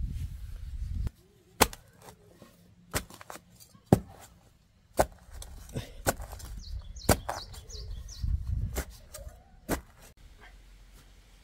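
A series of sharp chopping knocks, about seven, spaced irregularly a second or so apart, with low handling noise in between.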